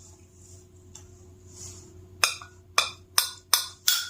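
A person gulping down liquid medicine: five quick swallows in a row, starting about two seconds in.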